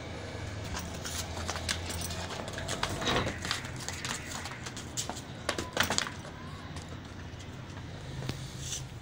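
Goats' hooves clicking and tapping irregularly on a concrete floor as the goats shift about, with a few louder knocks about three and six seconds in, over a steady low hum.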